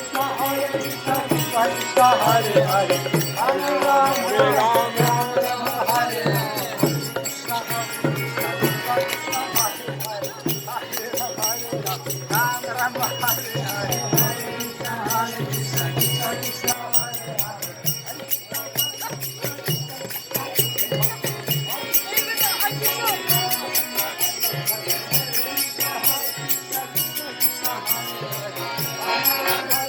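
Devotional kirtan-style music: voices singing over steady jingling percussion.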